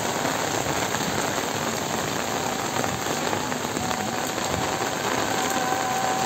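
Heavy rain falling steadily, a dense even hiss of drops on wet ground and foliage. A faint, thin, steady whine comes in about two seconds in.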